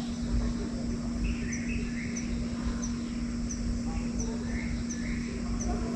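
Dawn forest ambience with birds calling: a short high chirp repeats about every two-thirds of a second from a second or so in, with a few lower calls between. Underneath runs a steady low hum and a low rumble.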